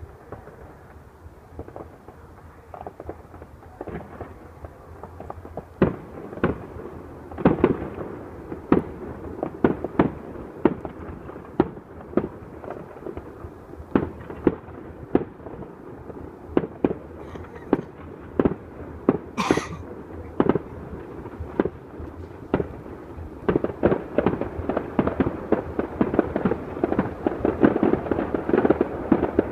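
Fireworks going off in a run of sharp bangs and pops, sparse at first, then coming faster and merging into dense crackling over the last few seconds.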